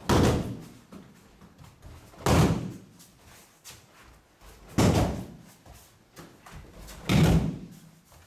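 Four heavy thuds, about every two and a half seconds: a person thrown in aikido practice landing in a breakfall on the mats.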